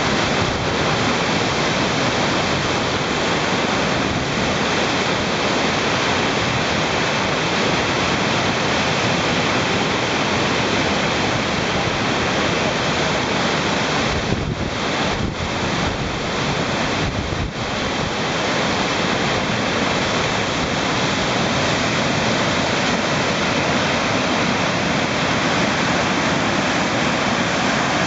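Whitewater river in flood at very high water: the rapids make a loud, steady rush of churning water.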